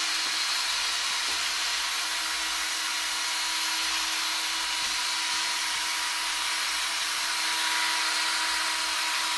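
Cordless drill driver running at a steady speed with a mixing whisk held down in a bucket of liquid two-component polyurethane, an even, unchanging whine. The polyurethane is being mixed with its hardener, the whisk kept submerged to keep air bubbles down.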